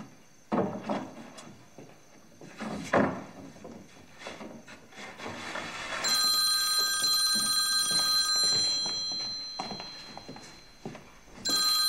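A telephone ringing: one long ring of a few steady tones together, starting about six seconds in and fading out, then a second ring beginning near the end. A few soft knocks come before it.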